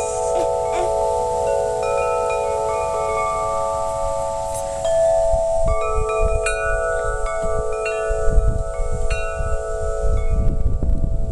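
Wind chime ringing with several long, overlapping tones. It is struck afresh about five seconds in and a few more times after. A low rumble comes in during the second half.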